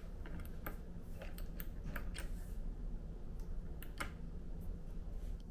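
Push-button light switches on a metal wall panel clicking as they are pressed, in a quick run of clicks in the first half, then two more about four seconds in, over a steady low hum.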